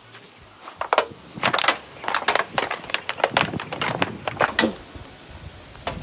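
An irregular run of short, sharp crunches and knocks, several a second, starting about a second in and stopping about five seconds in.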